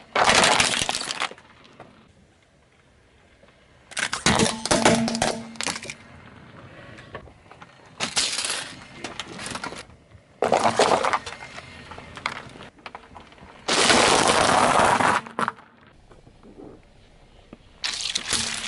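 A car tyre rolling over and crushing small objects one after another: about six separate bursts of crushing and crackling, each a second or two long, with quieter gaps between them, among them paper cups being flattened.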